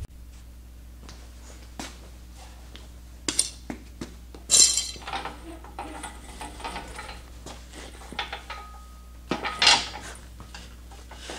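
Sheet-steel front section of a Ford F100 pickup bed clinking and clanking against the rest of the bed and its hoist chains as it is hung back in place. A few louder metal clanks stand out among lighter clinks, and there is a short squeak just before the last clank.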